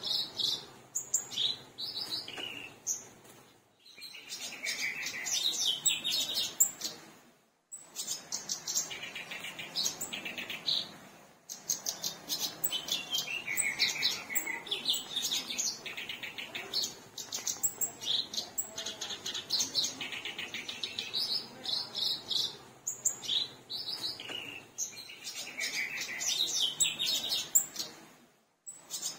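Black-browed reed warbler (kerak basi alis hitam) singing vigorously: long runs of fast, scratchy chattering and trilled notes, broken by a few brief pauses.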